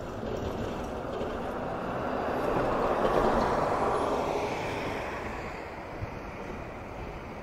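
A vehicle passing by out of sight, swelling to its loudest about three seconds in and then fading away.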